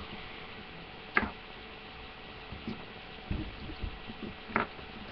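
A few light clicks and taps, four or five spread out, of hands working Play-Doh and its plastic tub, over a faint steady hum.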